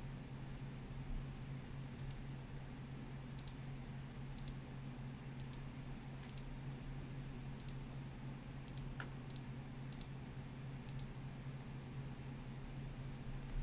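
Computer mouse clicking: about ten sharp clicks spaced roughly a second apart, many in quick pairs, over a steady low hum.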